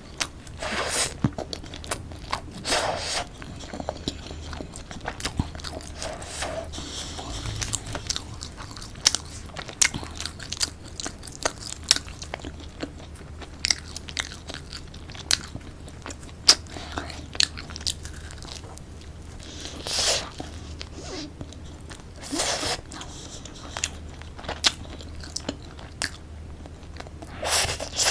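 Close-miked eating: crunchy bites into a tortilla-wrapped chicken wrap, a handful of louder bites spread through, with chewing and small wet mouth clicks between them.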